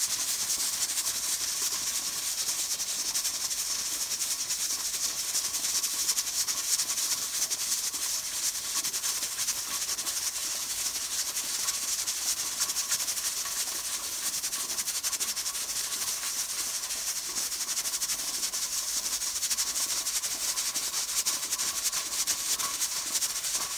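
Presto pressure cooker's adjustable weight regulator jiggling on its vent with a fast, steady rattle, while steam hisses out beneath it. The cooker is holding at about 15 psi, with the weight venting to regulate the pressure.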